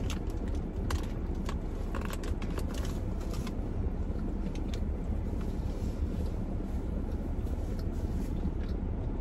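Eating sounds during a mukbang: soft, scattered clicks of chewing and handling food, busiest in the first few seconds, over a steady low rumble.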